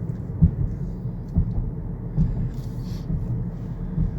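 Car driving, a steady low rumble of road and engine noise heard from inside the cabin, with small irregular bumps.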